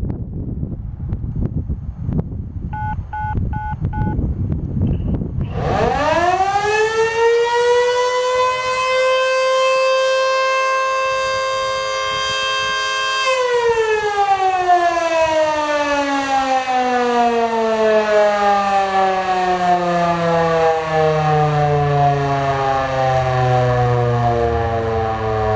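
Sterling 2V8 fire siren on its weekly test. About three seconds in, a short series of radio activation tone beeps sounds over wind noise on the microphone. At about six seconds the siren winds up quickly to a loud steady two-tone wail, holds it, then from about halfway winds down in a long slow falling glide.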